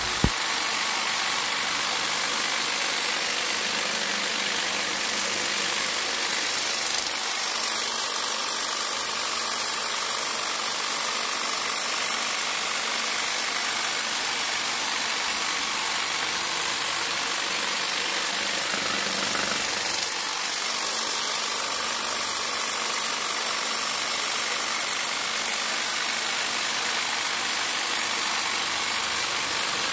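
Ryota electric jigsaw, modified with a long cloth-cutting knife blade, running steadily as it slices through a thick block of foam, with a brief click right at the start.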